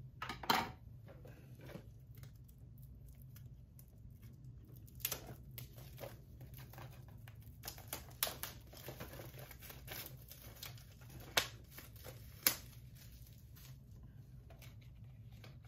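Plastic shrink wrap crinkling and tearing as it is peeled off a Blu-ray SteelBook case, with several sharp clicks and taps from handling the case.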